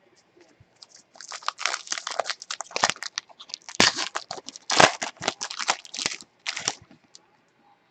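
Foil trading-card pack wrapper being torn open and crinkled by hand: a run of irregular crackles and rustles lasting about six seconds, loudest midway.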